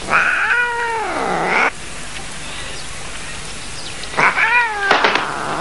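Domestic cat meowing twice: a long drawn-out meow that rises and then falls in pitch, then a shorter meow about four seconds in.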